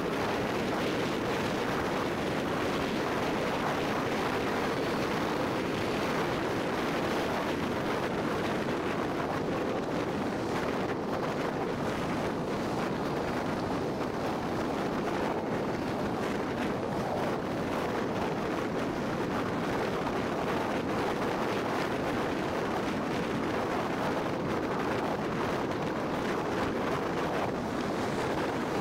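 Steady road and wind noise from a car driving at speed: an even rushing sound with no breaks or distinct events.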